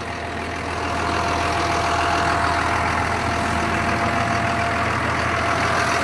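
A 1996 Blue Bird school bus engine idling steadily, with a thin steady whine over its low hum.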